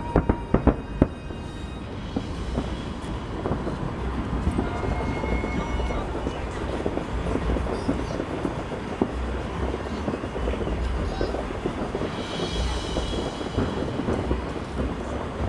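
Distant fireworks display: a few sharp bangs right at the start, then a continuous rumble of overlapping booms and crackle. Music plays faintly from a television.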